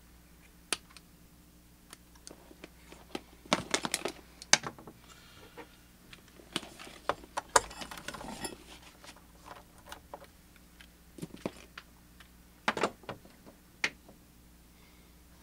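Wire cutters snipping through turntable signal and ground cables, with small handling clicks and rustles of the wires against the plastic base. The sharp clicks come at irregular times, bunched a few seconds in, again in the middle and near the end.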